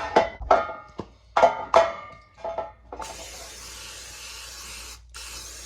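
Aerosol cooking spray hissing steadily as it coats a baking pan, with a short break about five seconds in before the spraying resumes. Background music plays before the spraying starts.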